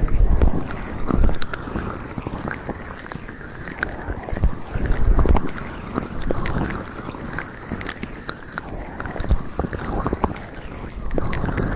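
Hands rubbing and pressing on a binaural microphone's ears in an ASMR ear massage: muffled friction with crackling clicks and low thumps, loudest at the start and again about five seconds in.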